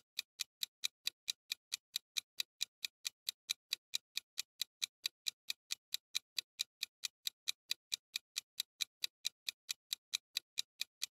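Quiz countdown-timer sound effect: steady, evenly spaced clock ticks, about four and a half a second, light and high-pitched.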